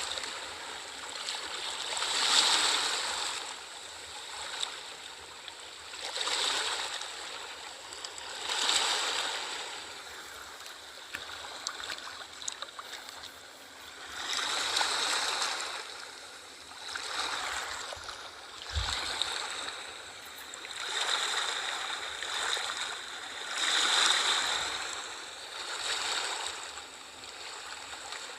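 Small sea waves washing in and draining back, a new wash rising and falling about every two to three seconds.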